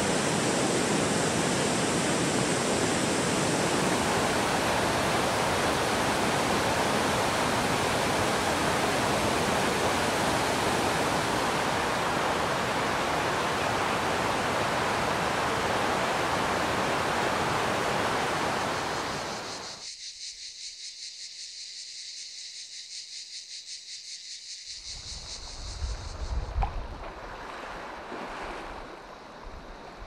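Waterfall rushing, a loud, steady roar of falling water that cuts off suddenly about two-thirds of the way through. A fainter high, rapidly pulsing buzz follows. Near the end, wind buffets the microphone in low gusts over small sea waves lapping.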